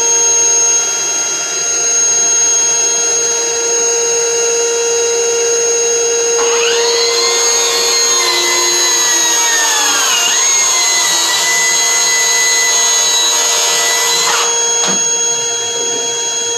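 A dust extractor hooked to the saw runs steadily with an even hum throughout. About six seconds in, a Milwaukee M18 FUEL cordless plunge track saw starts and plunge-cuts through a wood board along its guide rail, its motor pitch sagging under load for a couple of seconds before picking up again, and it stops about fourteen seconds in.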